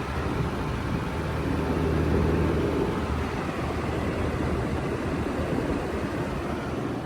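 Side-discharge heat pump outdoor unit running in heating mode: a steady rush of fan air over a low compressor hum, the compressor wrapped in a sound blanket.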